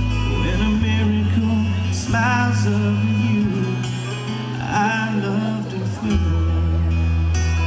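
Slow country ballad with a man singing over acoustic guitar and a steady bass line.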